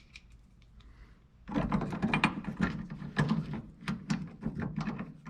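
Metal hand tools clicking and rattling in a rapid, irregular run of sharp clicks that starts about a second and a half in.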